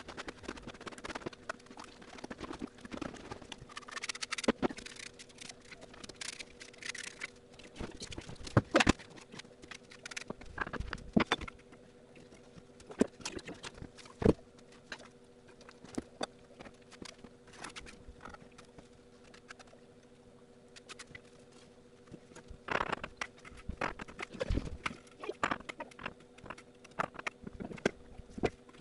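Hand bricklaying on a brick stove: irregular knocks and taps of bricks being set and tapped into place, with short scrapes of mortar being worked, quieter for a few seconds past the middle and busier again near the end. A faint steady hum runs underneath.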